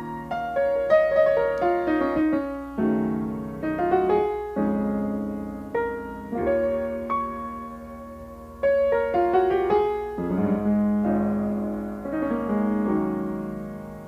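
Background music: piano playing a slow melody with chords, each note struck and left to ring.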